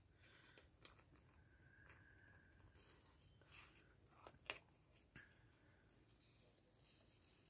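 Faint snips of small scissors trimming thermal-printer sticker paper: a few scattered quiet clicks, the loudest about four and a half seconds in, otherwise near silence.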